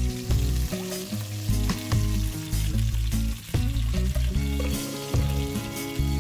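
Bone-in chicken thighs sizzling as they fry in hot oil in a nonstick pan, with metal forks clicking and scraping against the pan as the pieces are turned. Background music plays underneath.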